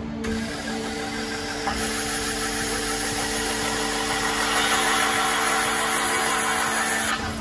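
Peddinghaus Avenger MDL1000B CNC beam drill line drilling into a steel beam: a steady machine hum, with a loud hissing cutting noise that builds from about two seconds in and cuts off abruptly near the end.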